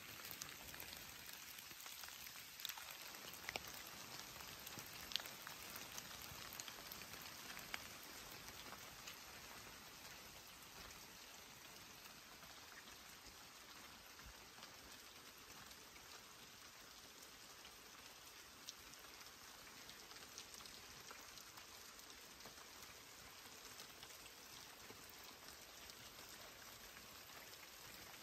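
Light rain falling steadily, a quiet even hiss, with a few sharp ticks in the first eight seconds or so and one more near the middle.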